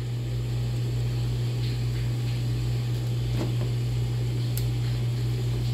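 Philco air fryer running empty as it heats up: a steady low hum from its fan motor with a rush of air, which is bem silenciosa (very quiet).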